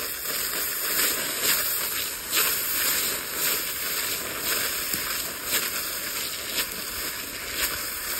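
Shelled corn pouring from a plastic bucket onto dry leaf litter: a steady dry hiss of kernels landing, dotted with small rattling ticks.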